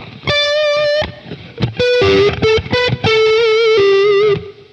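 Electric guitar played through a Boss Katana 100 amplifier with the delay turned off and only reverb on: a single-note lead phrase of held and short notes, with vibrato on the last held notes.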